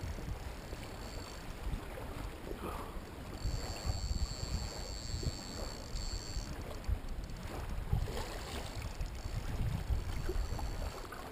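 Wind rumbling on the microphone over water lapping at a small aluminium fishing boat, while a fish is being played on the line. A faint steady high whine comes in for a few seconds midway.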